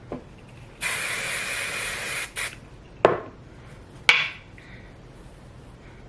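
Hair product spray hissing for about a second and a half, then a short second spray, followed by two sharp clacks about a second apart.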